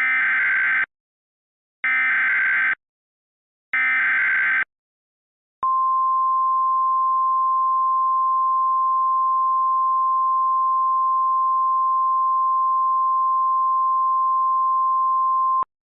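Emergency Alert System signal: three short bursts of warbling SAME header data, each just under a second and about a second apart, then a steady single-pitched attention tone that holds for about ten seconds and cuts off with a click.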